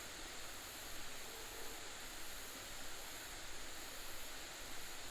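Steady, low rush of water from a small creek waterfall spilling into a pool.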